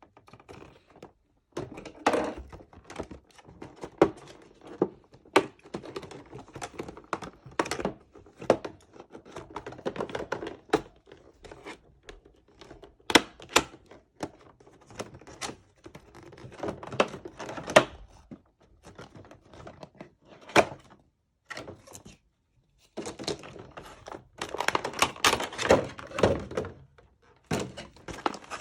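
Headphone box and packaging being handled and opened by hand: irregular knocks, taps and clicks on cardboard, with a longer stretch of rustling and scraping near the end.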